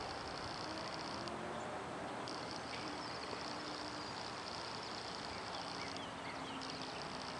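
An insect trilling steadily in a high, rapidly pulsed buzz, breaking off for about a second near the start and again briefly later on, over a soft outdoor background hiss.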